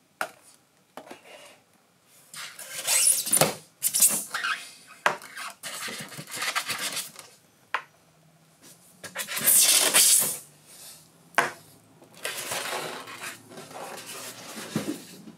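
Unboxing handling noise: a polystyrene packaging insert scraping and rubbing, and small items such as AA batteries and a toy crate set down on a tabletop with light knocks and clatter. The scrapes and knocks come irregularly.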